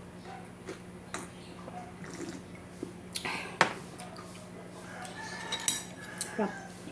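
Crunching bites of crispy pork rind (chicharon) being chewed, a few sharp crunches with the loudest about three and a half seconds in. A chicken calls faintly in the background near the end.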